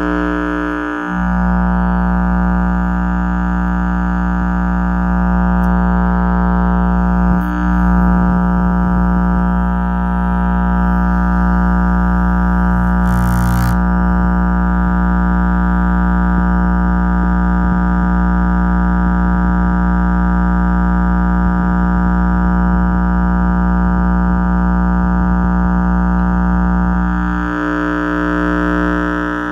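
4-inch subwoofer driver playing a steady 60 Hz test tone from an online tone generator, driven hard at large cone excursion. The low hum comes with a strong stack of overtones above it.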